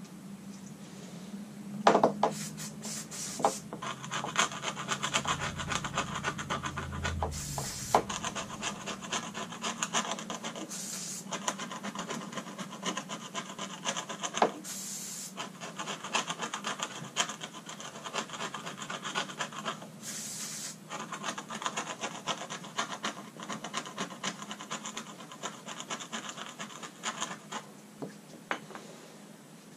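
Rapid, repeated scraping and rubbing as softened, solvent-soaked traction-mat adhesive is worked off the gel coat deck of a 2007 Kawasaki STX-12F jet ski, with a few brief hissing bursts among the strokes.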